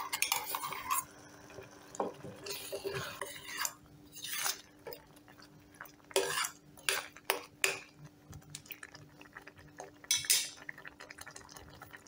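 Steel ladle stirring a thick lentil-and-vegetable stew in an aluminium pressure cooker pot, with irregular clinks and scrapes of metal on metal.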